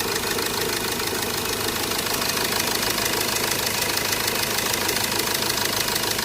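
Hyundai Verna engine idling steadily with a fast, even ticking clatter, just started after its timing chain was refitted and a blocked oil line was cleared.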